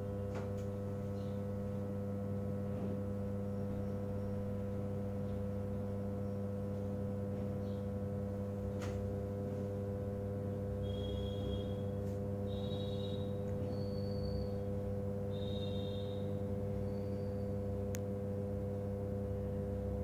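Microwave oven transformer humming steadily at mains frequency under a heavy short-circuit load, its low-voltage secondary driving high current through a steel spring that heats until the plastic on it smokes.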